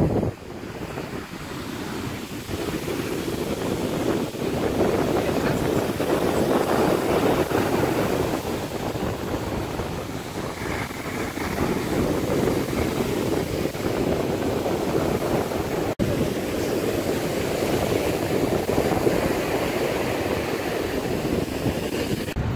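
Surf breaking and washing up a sandy beach: a continuous rushing wash that swells and eases every few seconds.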